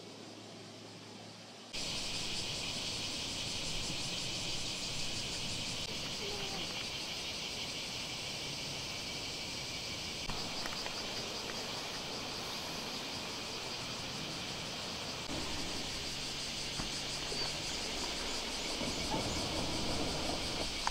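Steady, shrill chorus of summer insects with a fine, rapid pulsing, coming in about two seconds in.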